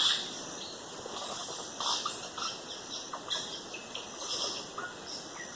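Rainforest ambience: a steady high insect drone with scattered short bird chirps and calls.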